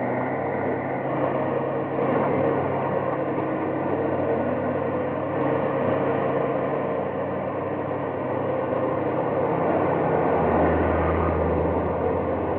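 Engine of a heavy cable-laying machine running steadily while its plough cuts a yellow duct into the ground; a deeper hum comes in about ten seconds in.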